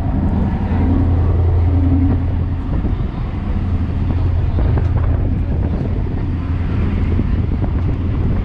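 Passenger ferry's engine running with a steady low drone that eases off for a couple of seconds partway through, with wind buffeting the microphone.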